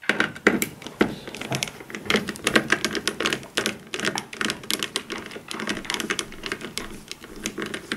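Screwdriver turning out a screw from the sheet-metal shield over a TV's T-con board, with rapid, irregular clicking.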